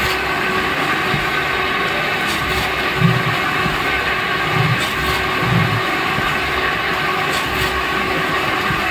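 Electric lime mortar pan mixer running: its rollers and scraper blades churn dry lime and sand in the steel pan with a steady mechanical rumble. A few short low thumps come about three seconds in and again around five seconds.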